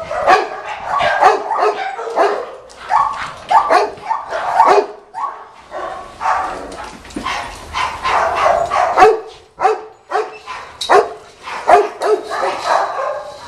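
Dog barking over and over, a couple of loud barks a second with a few short pauses.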